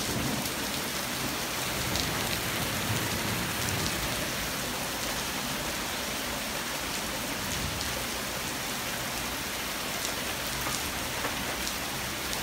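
Heavy rain pouring down steadily in a thunderstorm, a dense even hiss.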